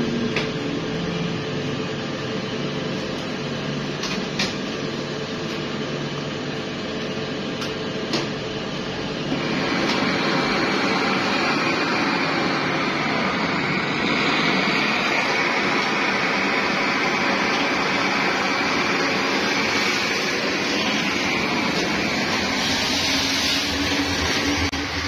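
Steady workshop machinery hum with a few sharp clicks, then about ten seconds in a hand-held gas torch fed from a small gas cylinder is lit and burns with a steady, loud hissing rush over the hum.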